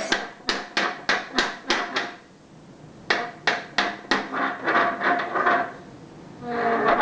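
Rhythmic banging on a hard object: two runs of sharp knocks at about three a second, with a pause between. Pitched vocal sounds follow in the second half.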